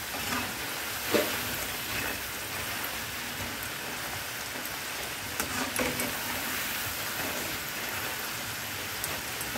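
Potato fries deep-frying in hot oil: a steady crackling sizzle as they turn crisp. A metal slotted spoon stirring them gives a few light clinks against the pan, about a second in, two seconds in and near six seconds.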